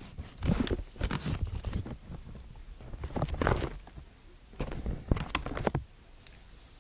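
Handling noise from a shipping parcel and its packaging: short rustles and knocks in three brief bouts.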